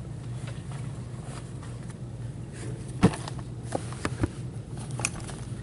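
Handling noises: a series of short knocks and clicks as gloved hands move a sealed card box and a black cloth, the sharpest about three seconds in, over a steady low hum.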